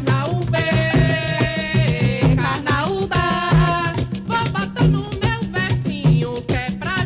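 Coco de roda music played live: a singing voice carries a melody over a steady, repeating drum beat and hand percussion.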